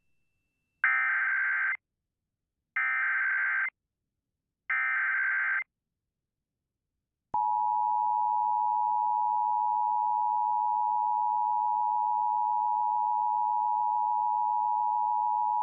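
Emergency Alert System broadcast opening: three one-second SAME digital header bursts encoding a Civil Danger Warning, a short pause, then about seven seconds in the steady two-tone EAS attention signal (853 and 960 Hz) starts.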